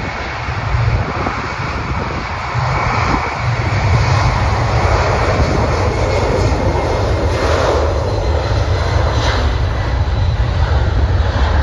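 Jet engines of a departing Boeing 747 freighter, a steady low rumble and roar that grows louder about a third of the way in.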